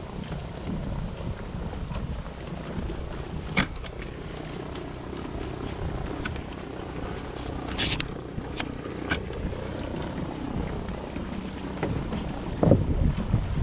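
A floatplane's propeller engine droning steadily over wind buffeting the microphone, with a few sharp clicks and knocks, the brightest about eight seconds in.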